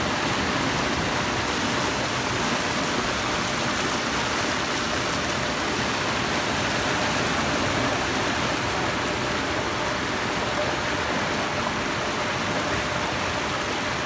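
Muddy floodwater of a river risen after a landslip rushing and churning across a road and around railing posts: a steady, unbroken rush of water.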